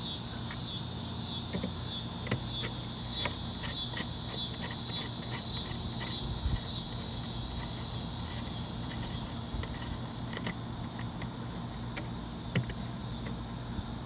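Insects chirping in a high-pitched pulsing chorus, about two pulses a second, fading away about eight seconds in. Small clicks and taps of hands working the camlock in the RV door, with one sharper click near the end.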